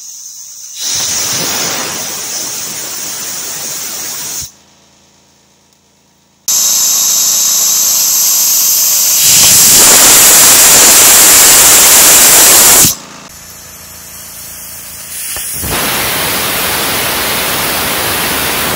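Homemade arcjet thruster test firing on compressed air: the air jet hisses loudly out of the nozzle while the arc burns away the graphite electrode. It comes in three loud bursts that start and stop abruptly, the middle one the longest and growing louder partway through.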